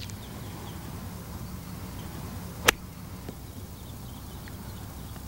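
A single crisp click of a wedge striking a golf ball on a short chip shot, about two and a half seconds in.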